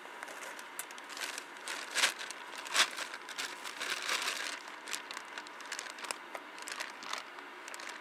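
Plastic bags crinkling and rustling in irregular bursts, with two sharper snaps about two seconds and about three seconds in.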